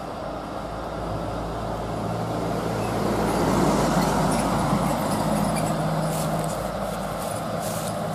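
Diesel engine of a stone-hauling dump truck pulling up a long steep climb. The steady engine note grows louder as the truck approaches, is loudest about halfway through, then eases a little.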